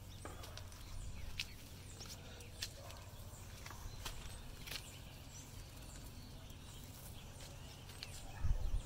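Outdoor garden ambience: a steady low rumble, scattered short high clicks, and a louder low thump near the end.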